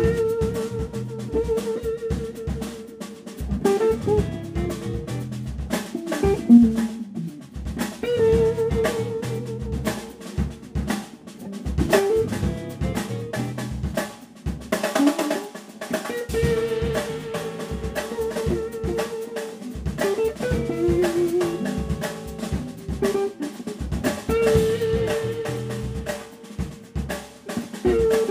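Electric band playing instrumentally: a Gretsch drum kit busy on snare, rimshots and bass drum under bass, keyboard and electric guitar through a Fender Pro Junior IV amp. A long held note comes back every few seconds over the drumming.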